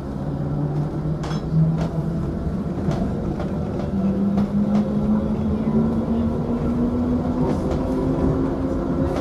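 Diesel multiple unit's engine heard from the driving cab as the train moves along the line. The engine note dips about two seconds in, then climbs steadily as the train picks up speed, with a few sharp clicks along the way.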